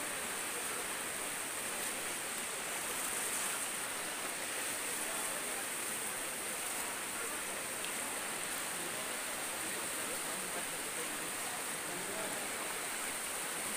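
Floodwater rushing steadily across a submerged road, a strong current running over it.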